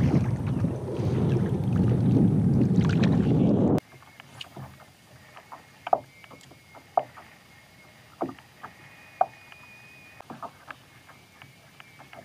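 Wind buffeting the microphone with a low rumble, cutting off suddenly about four seconds in. After the cut it is quiet, with scattered light knocks and taps around a fishing kayak.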